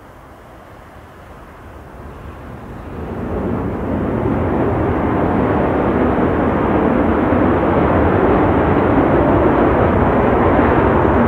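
Sukhoi Su-35 fighter's twin jet engines spooling up for takeoff: the jet noise swells over about two seconds, a couple of seconds in, then holds loud and steady.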